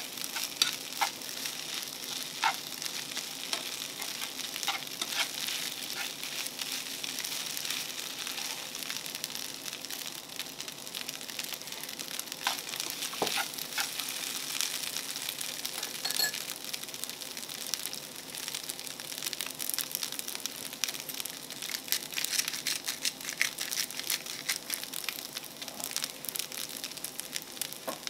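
Egg fried rice sizzling in a small frying pan over a portable gas stove, stirred with metal chopsticks that click and scrape against the pan.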